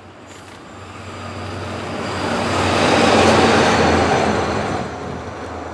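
A single locomotive running light, without wagons, passes close by on the tracks. Its rush and low steady hum swell to a peak about three seconds in and fade as it goes by.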